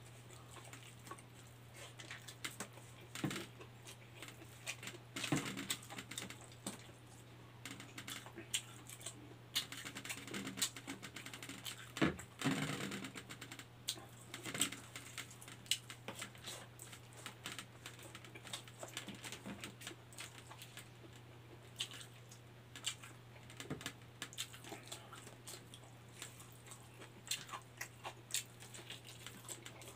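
A person eating by hand: irregular chewing and small mouth clicks and smacks, picked up close. A steady low hum runs underneath.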